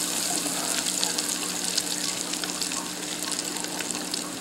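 Hot oil in a countertop deep fryer sizzling and crackling steadily around a freshly lowered basket of frozen, breadcrumb-coated potato cheese balls. It is a dense hiss full of tiny pops.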